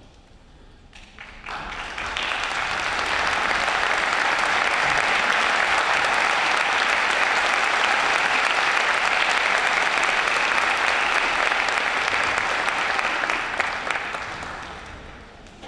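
Audience applauding. It starts about a second and a half in, holds steady, and dies away near the end.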